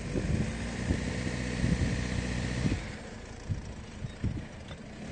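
SsangYong Rexton Sports pickup's engine running under throttle in four-wheel-drive low while the truck is stuck in soft sand, with a hiss over it that eases off about halfway through; the wheels do not free the truck.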